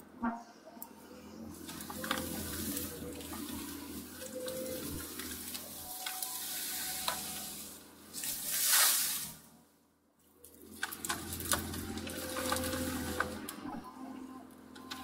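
Hyundai R220LC-9A crawler excavator heard from inside its cab: the diesel engine running under load with a hissing rush from the hydraulics as the rake bucket rips out brush and roots, with scattered cracks of snapping branches. The rush is loudest about nine seconds in, then the sound nearly drops away for a moment before the engine and hydraulics pick up again.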